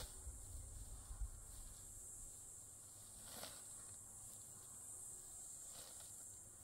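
Faint, steady high-pitched buzzing of insects in dry grass, with a few soft rustles of a woven plastic sack being handled, near the start, about halfway through and near the end.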